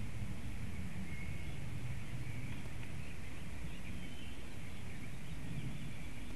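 Forest ambience: a steady low rumble and hiss, with short high whistled calls of small birds several times.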